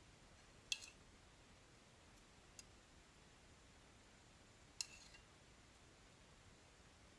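Two light clinks of kitchenware, about four seconds apart with a fainter tick between them, over near silence.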